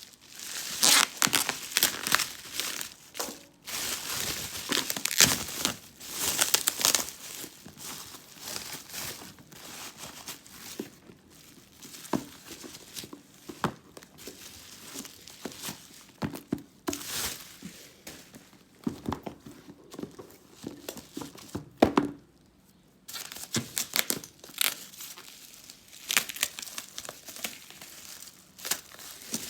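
Packaging crinkling and tearing by hand as a parcel is opened, in irregular bursts with short pauses.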